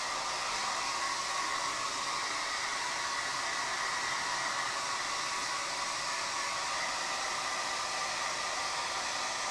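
Handheld hair dryer blowing steadily, a constant hiss of rushing air with a faint high whine from its motor.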